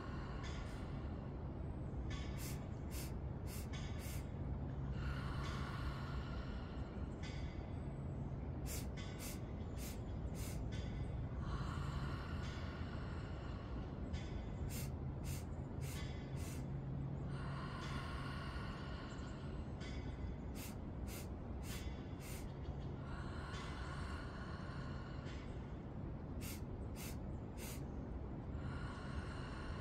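A woman doing rhythmic breathwork: four quick, sharp inhales in a row, then one long breathy exhale out through the open mouth. The cycle repeats about every six seconds, five times, over a steady low hum.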